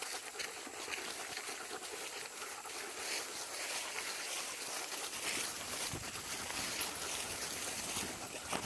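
Footsteps rustling and crunching while walking, heard as a steady hiss of many small crackles.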